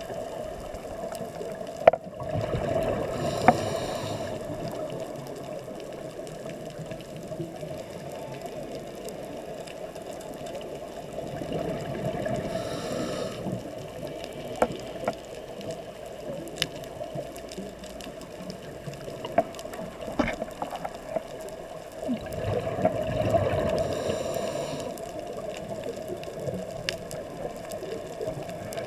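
Scuba diver's regulator breathing heard underwater: three long rushes of exhaled bubbles, about ten seconds apart, over a steady watery hiss with scattered sharp clicks.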